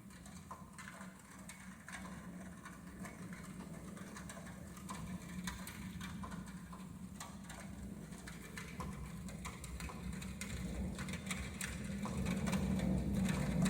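Foley-made storm sound effects: irregular light ticks and patter over a low rumble that grows louder toward the end, imitating rain setting in.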